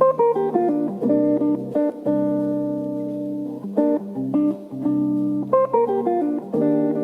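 Background music: plucked guitar playing a melody over held chords.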